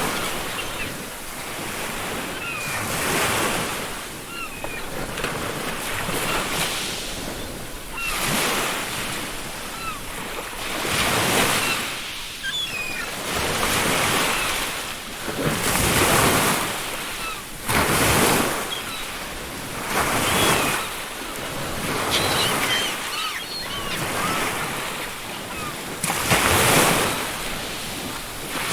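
Ocean waves breaking and washing up a beach, the surf swelling and falling every two to three seconds, with seagulls giving short calls now and then.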